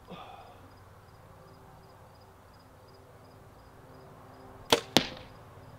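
A carbon compound bow, the Diamond Archery Deploy SB, shot with a wrist release: a sharp snap of the string about four and a half seconds in, followed about a quarter second later by a second sharp smack as the arrow strikes the target.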